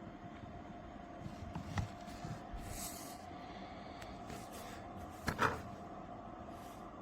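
Faint handling sounds over a steady low hum: a knock a little under two seconds in, a brief rustle, and a louder double knock past the five-second mark.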